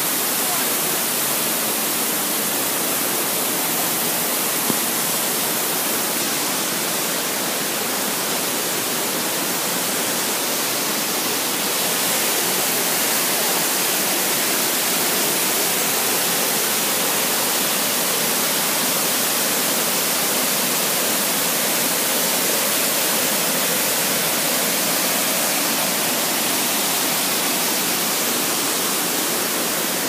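A waterfall rushing: falling water cascading over rocks, giving a steady hiss.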